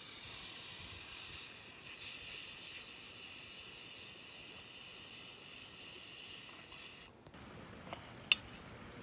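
Pressure cooker letting off steam in a steady hiss as it is depressurised before opening; the hiss cuts off abruptly about seven seconds in. Near the end, a single sharp click.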